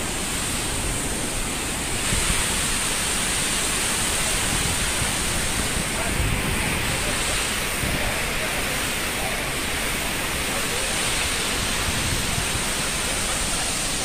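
A steady, even rush of falling water.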